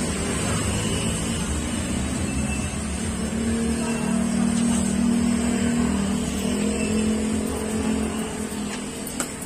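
A motor vehicle engine running steadily, with a held tone that rises in the middle for a few seconds before easing off; a single sharp click near the end.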